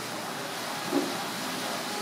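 Steady hiss of a pot of water heating on a gas burner, with one short low knock about a second in.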